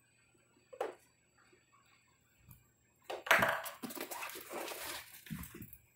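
Two macaque monkeys scuffling and wrestling on a blanket-covered couch: a brief sharp sound about a second in, then from about halfway a few seconds of rustling, scrabbling and soft thumps as they tumble together.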